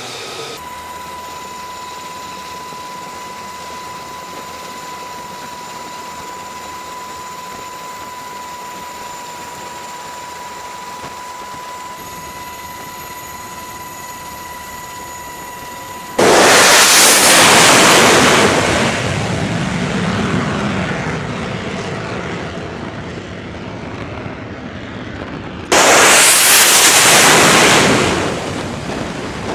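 F-35C fighter jet engine noise. First a steady jet whine with a high tone. About 16 s in, a loud jet roar cuts in suddenly and fades over several seconds, and a second sudden loud roar comes in about 26 s in and drops off near the end.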